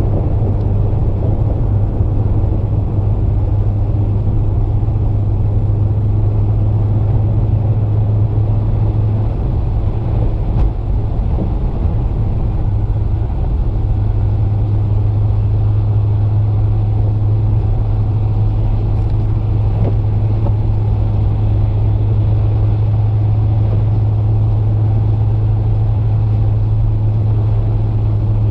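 BMW 335i with the N54 twin-turbo inline-six cruising steadily on a snowy road: a constant low engine and tyre drone, wavering briefly about halfway through.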